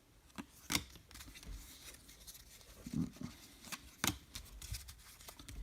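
Baseball cards being handled and flipped through by hand: soft sliding of card stock with a few short, sharp clicks.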